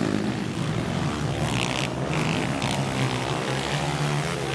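Motocross dirt bike engines running on the track, their pitch rising and falling as the riders work the throttle through the corners.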